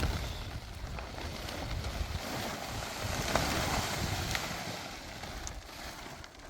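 Wind blowing over the microphone, a steady noisy rush with uneven low buffeting and a few faint ticks.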